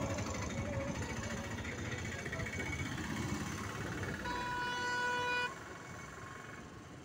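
Road traffic passing close by, with a vehicle horn sounding once for a little over a second past the middle; the traffic noise drops away right after the horn.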